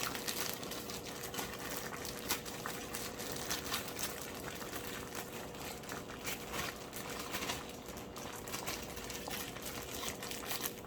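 Plastic bag crinkling as frozen bitter melon slices are shaken out of it into a pot of simmering soup, with a dense crackle of small ticks and bubbling throughout.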